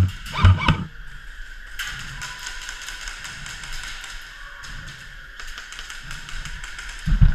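Airsoft guns firing across an indoor arena: a fast patter of shots and BB hits, with louder close knocks at the start and again near the end.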